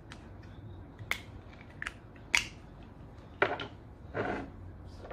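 Small glass essential-oil bottles and their caps being handled and opened: three sharp clicks, then three short scraping, rustling sounds.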